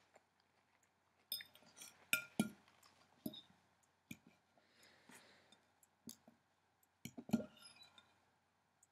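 Metal fork clinking and tapping against a dish while picking up kale salad: a series of sharp clinks, loudest about two seconds in and again about seven seconds in.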